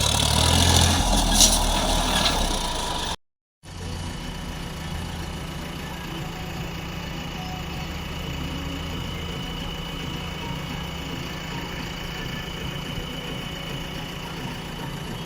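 Diesel engine of heavy farm or earthmoving machinery running, louder for the first three seconds with a sharp knock about a second and a half in. After a brief cut to silence it settles into a steady idle with a faint high whine.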